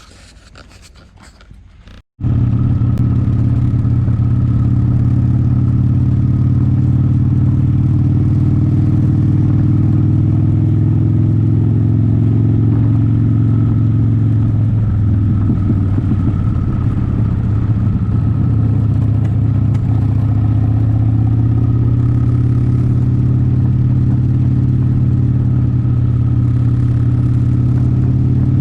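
Steady, loud low drone of a running engine, like a vehicle driving, beginning abruptly about two seconds in after a brief quiet stretch with a few light clicks.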